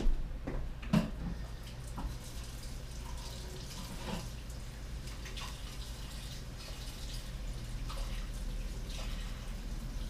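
Water running and dripping at a sink, with scattered small splashes and clinks and a sharper knock about a second in, over a low steady hum.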